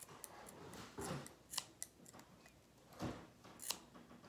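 Scissors snipping at a slime-filled rubber balloon: about four quiet, separate cuts.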